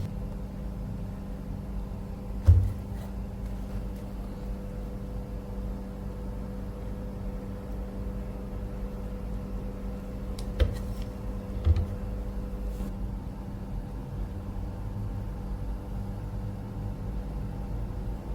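A machine hums steadily at an even pitch, with a sharp knock about two seconds in and two more knocks later on.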